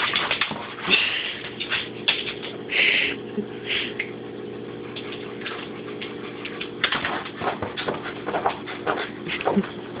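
A corgi whining in short high cries, four times in the first four seconds, then a run of sharp clicks and scratches as its claws and teeth work at a magnet on the fridge door. A steady low hum runs underneath.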